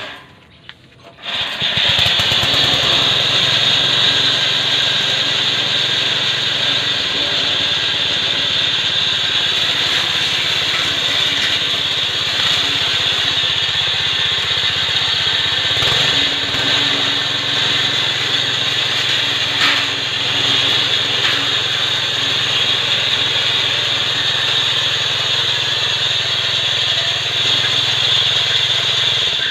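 Homemade walk-behind lawn mower's small petrol engine running steadily with its cutting blade spinning through long grass, the noise starting abruptly about a second in.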